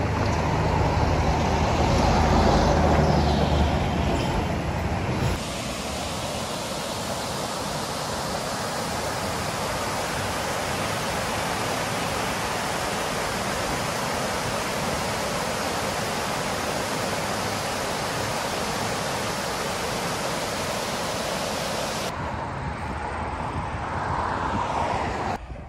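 River water rushing over a low dam spillway: a steady, even rush. For the first five seconds it is a rumblier rush of shallow water running over rocks. It changes abruptly about five seconds in and drops to a quieter, duller background a few seconds before the end.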